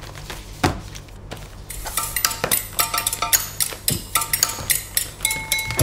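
Irregular clinks and taps of small hard objects being handled, a few each second and thicker in the second half, some with a brief ringing tone, over a low steady hum.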